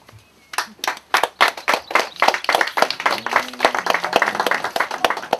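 Audience applause: hand clapping starts about half a second in with a few separate claps, then thickens into dense, steady clapping.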